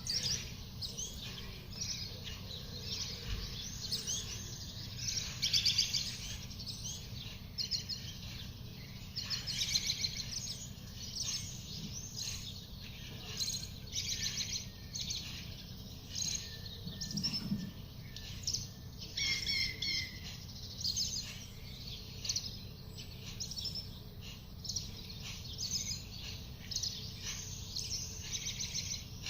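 Young great tit chirping: many short, high calls repeated irregularly.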